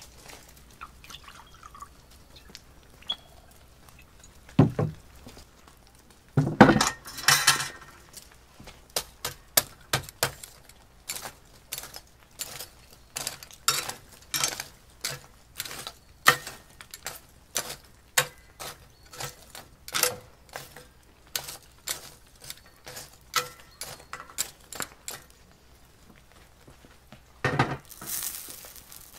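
Hot wood embers being scooped with a metal scoop into a cast iron grill: many light, irregular clinks and crunches of coals. Near the end there is a louder clank as the cast iron grate is set on the grill.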